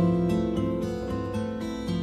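Background music played on what sounds like a plucked acoustic guitar, notes changing every fraction of a second.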